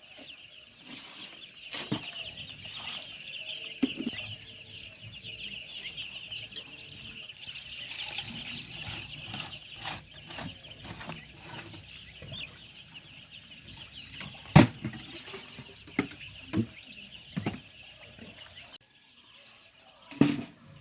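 A shed full of broiler chickens peeping and clucking in a dense, continuous chorus. A few sharp knocks come in the last third.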